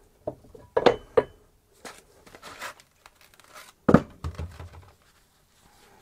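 Metal hardware clips being fitted into a brake pad carrier: a few sharp metallic clicks and knocks in the first second and a half, some rustling, then the loudest knock just before four seconds in.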